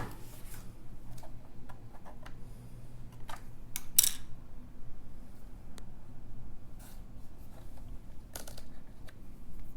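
Scattered small clicks, taps and rubs of plastic from handling a Microsoft Sculpt Ergonomic Keyboard and its battery compartment, over a low steady room hum. The sharpest click comes about four seconds in.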